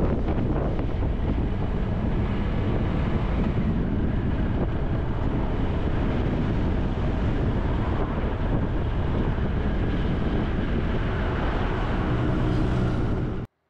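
Motorcycle ride-along sound: wind buffeting the microphone over the bike's engine running at low road speed. A clearer engine note comes up near the end as another motorcycle passes, then the sound cuts off abruptly.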